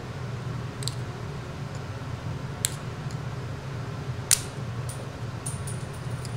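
Light clicks of a metal spudger against the phone's frame and display flex-cable connector as the cable is pried loose, with one sharper click about four seconds in, over a steady low hum.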